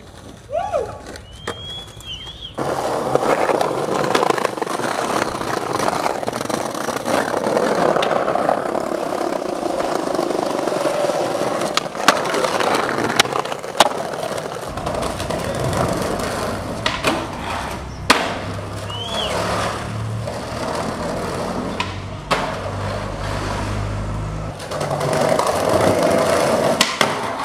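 Skateboard wheels rolling over concrete paving, with several sharp clacks of the board popping and landing.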